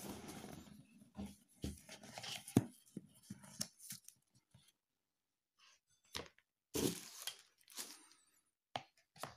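White paperboard box being opened by hand: the lid slides off with a papery rustle, followed by scattered rustles and a few sharp knocks as the packaging is handled, with short silent gaps.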